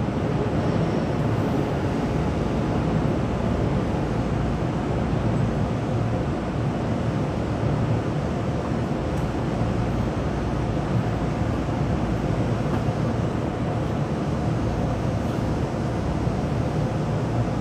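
Keisei 3500-series commuter train heard from inside the car: a steady low rumble with no change in pitch.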